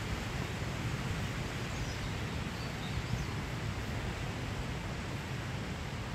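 Steady rushing of water over a river weir, with a few faint bird chirps in the first half.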